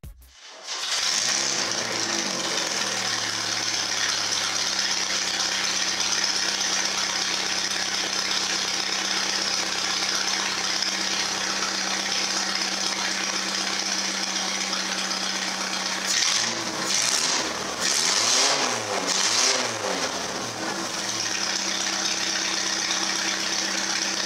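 Chevy S10 pickup engine running steadily, its exhaust coming straight out of a bare pipe through the hood with no turbo or muffler. From about sixteen seconds in, the sound rises and falls a few times for several seconds, then settles back.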